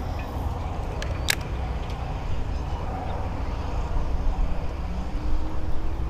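Steady low rumble of wind on the microphone, with a few short sharp clicks, the loudest about a second in.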